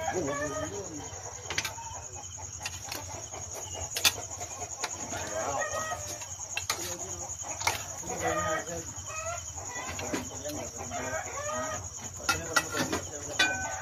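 Chickens clucking and calling on and off, with a few sharp clinks of a metal ladle stirring in a pan.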